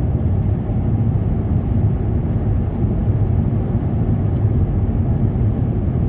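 Steady low rumble of a car's engine and tyres on the road, heard inside the cabin while driving.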